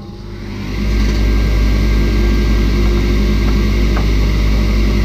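Electric motor of a woodworking power tool starting up, spinning up over about the first second and then running steadily with a low hum.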